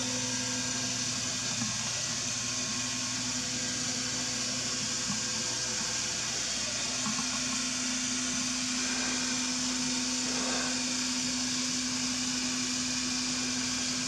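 Steady hiss with a low, even hum, unchanging throughout: indoor room tone from a running fan or appliance.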